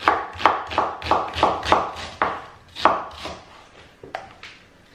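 Kitchen knife slicing through an onion and knocking on a wooden chopping board: a run of about ten sharp cuts, quick at first, then spacing out and fainter near the end.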